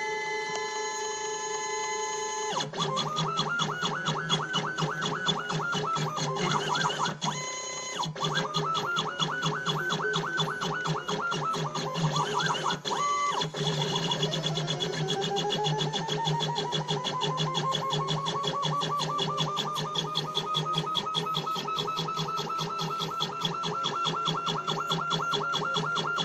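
Stepper motors of a homemade CNC pen plotter whining as it draws. The pitch rises and falls in arches as the axes speed up and slow down for each stroke, with brief pauses between moves. In the second half a long whine climbs slowly in pitch and then holds steady.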